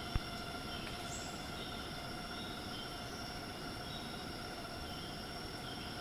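Tropical rainforest insect chorus, mainly cicadas, droning steadily in several held tones over a low rumble of wind noise on the microphone. A brief low thump comes just after the start, and a short high chirp about a second in.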